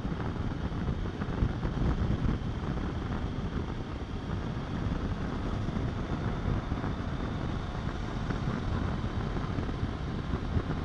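Wind rushing over the microphone of a motorcycle cruising at highway speed in strong crosswinds, with the bike's engine and tyres running underneath as a steady low drone.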